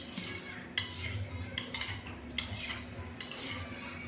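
Metal spoon stirring a thin liquid mixture round a ceramic bowl, scraping steadily and clinking against the bowl about once a second.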